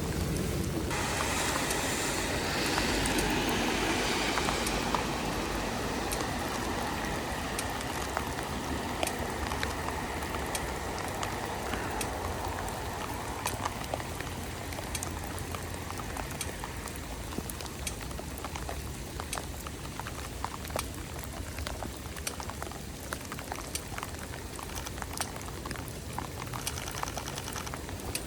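Heavy rain falling, a dense hiss with many sharp drop ticks close to the microphone, over a steady low rumble. The hiss is louder for the first few seconds and eases by the middle.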